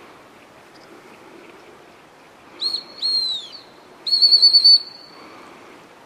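Gundog training whistle blown close by: two short pips, then a longer blast, then a loud warbling trilled blast that trails off, as whistle commands to a retriever working out in the field.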